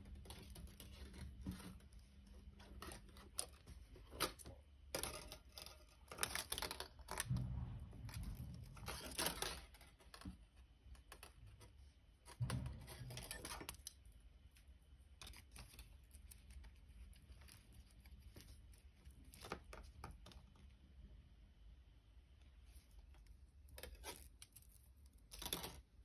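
Faint, irregular small clicks and scratchy rustles of thin copper wire being threaded through and pulled around wire-wrapped loops by hand, busiest in the first half and again near the end.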